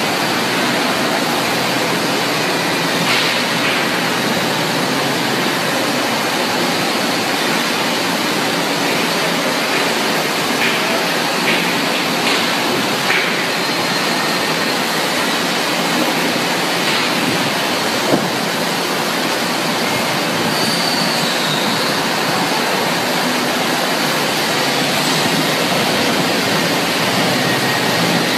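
Multi-layer hot-plate veneer dryer plant running: a loud, steady rushing hiss, with one sharp knock about two-thirds of the way through.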